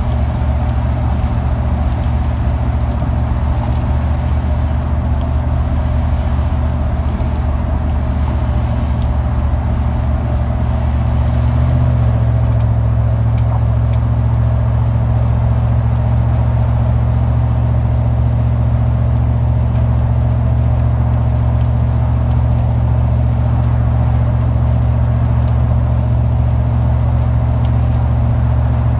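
Steady low drone of a car on the move, engine and road noise together; about twelve seconds in it rises slightly in pitch and gets a little louder.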